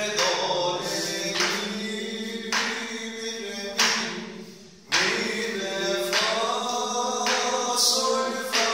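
A man's voice singing the solfège of a peşrev in makam Hüseyni, reading the note names from sheet music in held notes of about a second each.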